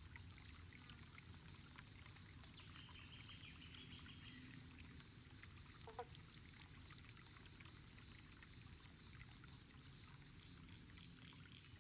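Near silence: faint pond-side ambience with a steady high hiss, a brief faint high trill about three seconds in, and a soft drip-like plink about halfway through and another at the very end.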